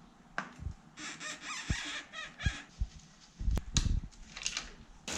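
Scattered, irregular knocks and clicks from a mountain-bike wheel being handled, with a few short chirping squeaks between about one and two and a half seconds in.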